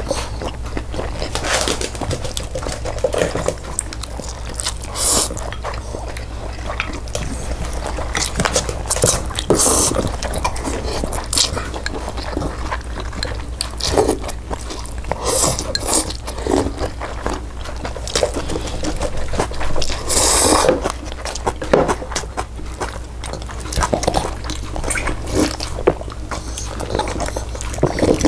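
A person chewing and biting food: short, irregular mouth and eating noises over a steady low hum.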